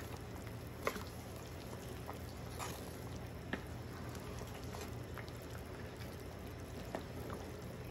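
Chicken broth simmering in a large aluminium pot while a wooden spoon stirs the chicken pieces, with a few light clicks along the way.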